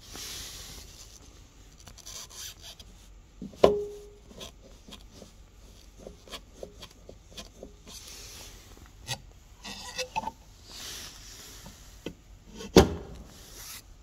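Hands handling a car's plastic fuel filler door and its surround: rubbing and light ticking, with a sharp plastic click about four seconds in and another near the end as the door snaps shut.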